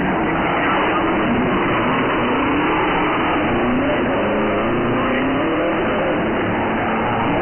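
Subaru rally car's flat-four engine revving up and down over and over, its pitch climbing and dropping as the car is driven hard around a wet course.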